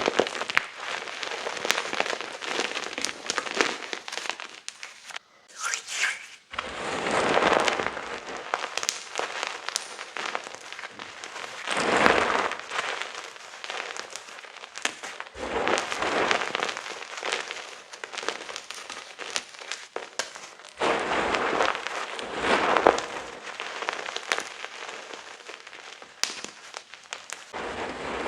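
Blocks and chunks of gym chalk being crushed and crumbled, a dense crunchy crackling full of sharp little snaps. It comes in several stretches that change abruptly a few times, as one crunching clip gives way to the next.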